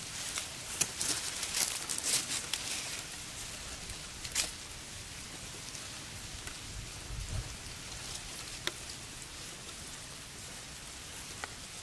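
Dry reed stems and litter crackling and clicking irregularly as two Eurasian beavers shift and groom each other in their reed bed, busiest in the first few seconds, with a brief low rumble around the middle.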